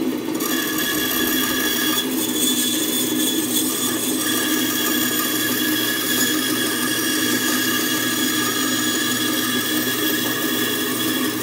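A 14-inch bandsaw running and cutting into a softwood block, a steady machine hum with a high whine over it. The blade is making a straight relief cut down to the layout line of a lap joint.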